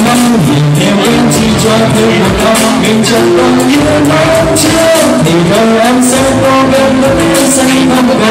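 A man singing into a microphone over a backing track with a steady beat, loud and amplified through a PA.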